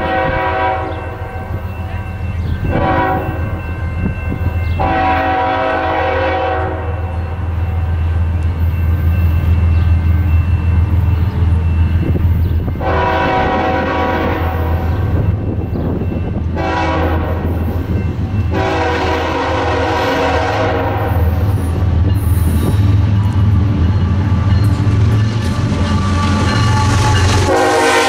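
Horn of an Iowa Interstate GE ES44AC diesel locomotive sounding a series of blasts, long and short: three close together, a pause of several seconds, three more, and another starting near the end. Under the horn runs the steady low rumble of the passing train.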